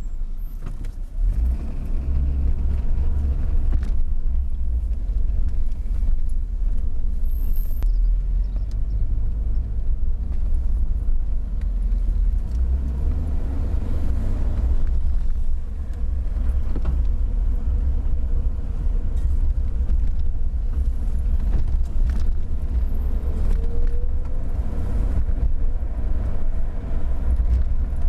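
Steady low rumble of a car driving, road and engine noise heard from inside the moving car.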